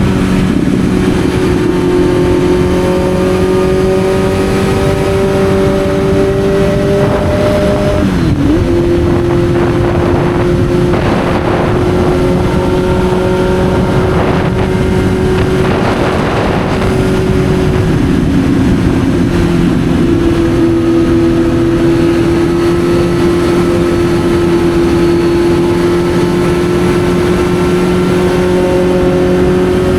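Kawasaki Z900's inline-four engine running under way, its pitch slowly climbing, then briefly dipping and recovering about eight seconds in before holding steady. A rushing hiss swells over it for a while in the middle.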